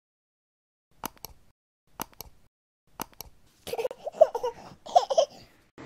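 Computer mouse click sound effects: three quick double clicks about a second apart, followed by a short burst of baby giggling and babbling.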